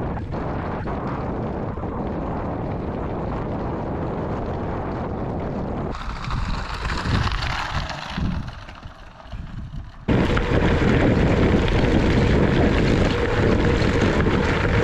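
Wind rushing and buffeting over the microphone while riding, cut into three stretches by abrupt changes about six and ten seconds in; it is loudest after the second change.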